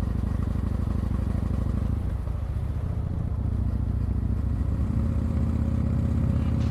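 Yamaha MT-01's big air-cooled V-twin engine running while riding. It eases off briefly about two seconds in, then pulls and gradually gets louder again.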